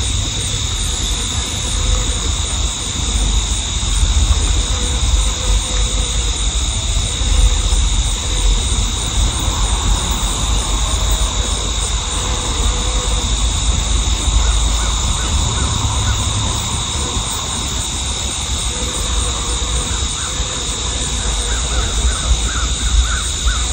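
Field ambience: a steady high insect chorus under a low wind rumble on the microphone, with bird calls now and then, more of them near the end.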